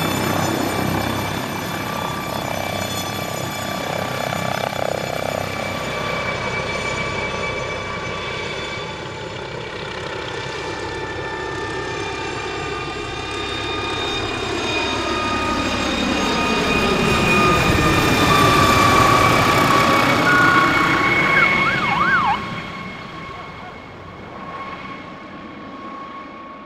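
MD 902 Explorer twin-turbine NOTAR helicopter lifting off and flying toward and past: steady high turbine whine over rotor noise. It grows louder to a peak about two-thirds of the way through, then drops off sharply and fades away.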